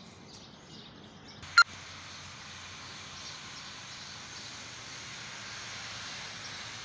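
A single sharp knock about a second and a half in, much louder than anything else, then a steady rushing hiss of outdoor noise.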